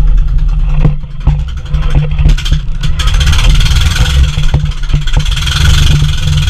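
Motorized outrigger boat's (bangka's) engine running with a steady low rumble. A rushing hiss builds up from about two and a half seconds in.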